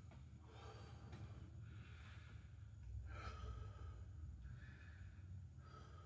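A man breathing hard, catching his breath after jumping rope, with a breath about every second and a half. A steady low hum runs under it.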